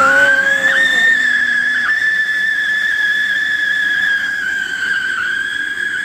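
Whistling 'siren' firecracker burning as it throws up a fountain of sparks: one loud, high whistle that climbs in pitch in the first second and then holds steady.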